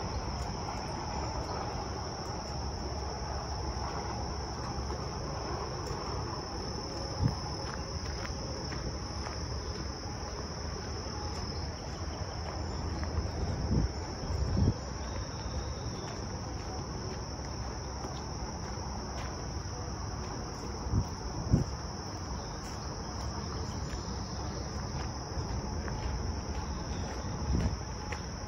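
Steady high-pitched insect chorus, with a low rumble underneath and a few short thumps scattered through it.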